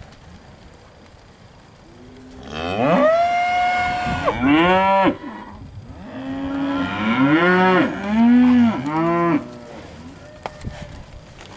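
Steers mooing: one long drawn-out moo about two and a half seconds in, then a short one, then a run of several shorter moos in quick succession from about six to nine seconds in.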